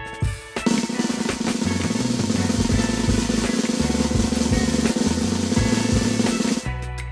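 Snare drum roll sound effect playing over background music with a bass line, starting about half a second in and stopping near the end: the suspense roll of a prize draw while the winner is being picked.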